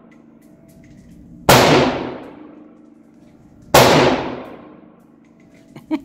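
.22 pistol fired twice, about two seconds apart, each sharp shot ringing off the walls of an indoor range and dying away slowly. A few light clicks come near the end.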